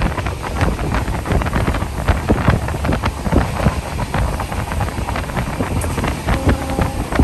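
Wind buffeting the microphone over the steady rumble and irregular clatter of a passenger train running at speed.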